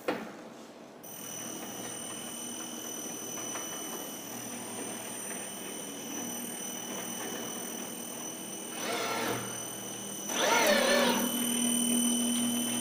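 Robotic seam welding cell at work: a steady high whine of machinery, with louder rasping bursts about nine and ten and a half seconds in, after which a low steady hum sets in.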